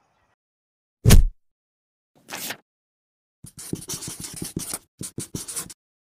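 Animated-outro sound effects: a loud thump with a deep boom about a second in, then a swish, then a marker pen scratching across paper in quick short strokes as a line is written out, with a brief pause near the end.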